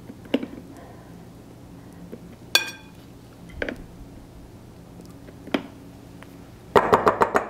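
Metal measuring spoons clinking against each other and against a glass mixing bowl as cooking oil is measured into flour: a few separate clinks, one of them ringing a little before halfway, then a quick run of taps near the end. A faint steady hum lies underneath.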